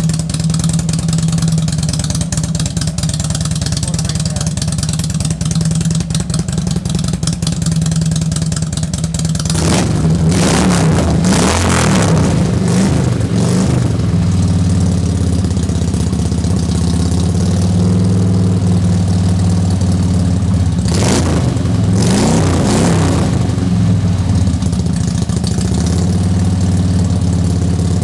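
2002 Harley-Davidson Road King's fuel-injected V-twin, bored out to 95 cubic inches, running through Wild Pig aftermarket mufflers. It idles steadily, is blipped up and down several times about a third of the way in, and is blipped again about three-quarters of the way through, each time settling back to idle.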